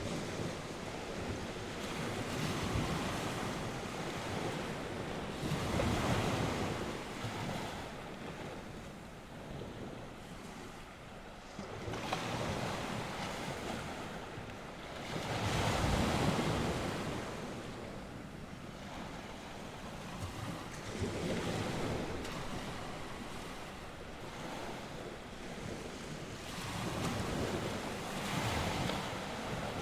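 North Sea waves breaking and washing on the shore, the surf swelling and falling back every five or six seconds, with wind blowing across the microphone.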